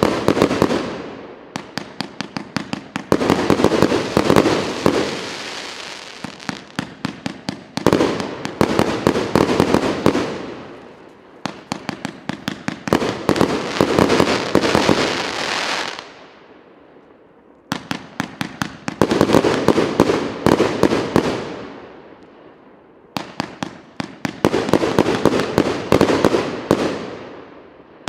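A 200-shot, 1.2-inch-calibre firework battery firing in salvos. Each salvo is a fast string of sharp launch reports followed by a haze of bursts that fades away. There are short lulls between the salvos.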